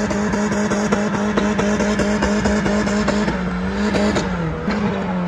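Car engine held at high revs during a burnout, the drive tyres spinning in place; about three seconds in the revs start to fall and keep dropping as the driver backs off.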